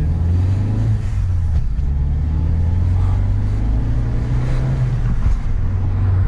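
Ford Focus ST's turbocharged 2.0-litre four-cylinder engine heard from inside the cabin while driving, its note rising as the car pulls and breaking briefly near five seconds in as the driver changes gear.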